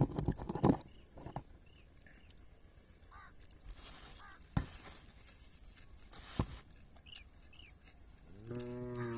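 Quiet eating sounds: soft chewing and small clicks and knocks of hands on food, with a few faint short chirps. Near the end comes a low, drawn-out call that falls in pitch as it ends.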